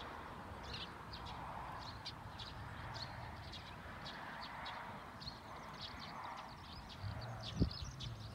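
Faint birdsong: many short, high chirps in quick succession from small birds. A single knock sounds near the end.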